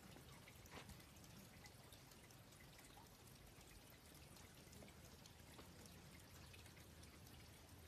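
Near silence: a faint steady hiss with a low hum and a few scattered soft ticks, the strongest about a second in.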